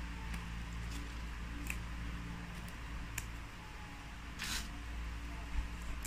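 Steady low electrical hum, with scattered small clicks and one short rustle about four and a half seconds in from hands handling snails and herbs over styrofoam food boxes.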